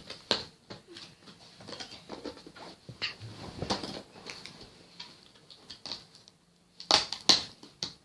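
Handling of a plastic toy blaster's packaging and parts: scattered rustles and light clicks, with two louder sharp knocks about seven seconds in.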